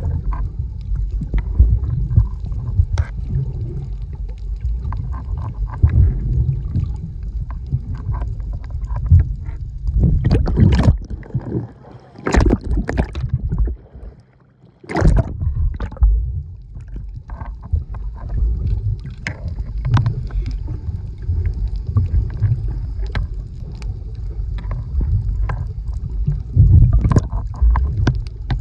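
Muffled low rumbling and gurgling of water moving past an underwater action camera during snorkeling. About halfway through come loud splashes as the camera breaks the surface, a brief quieter moment above the water, then another splash as it plunges back under.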